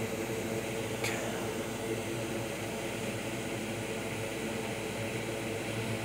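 Steady fan-like hum and hiss, with a faint click about a second in.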